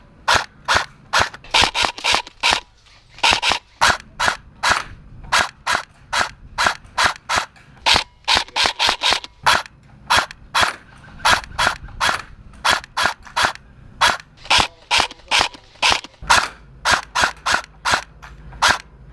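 Airsoft rifle fired in a long string of single shots, about two to three a second, each a short sharp report.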